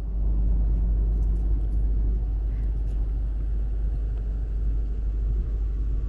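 Wind buffeting the camera's microphone: a steady, loud low rumble.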